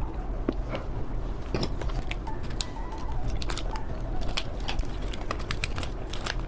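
Close-up eating sounds: scattered crisp clicks and crackles of candy being bitten and handled, over a steady low hum.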